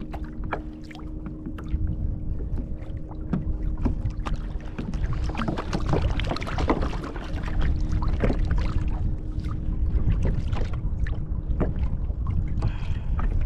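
Water splashing and slapping at a fishing kayak's side, with short knocks and clatter as a freshly caught kahawai is handled on board, over a low rumble of wind on the microphone.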